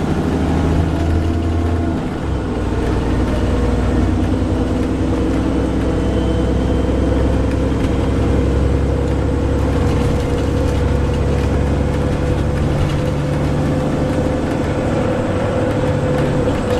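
VDL DB300 double-decker bus with Wright Pulsar Gemini 2 body heard from inside while under way: engine and drivetrain running steadily, with a persistent droning tone over a low hum. The drone grows clearer a couple of seconds in and then holds.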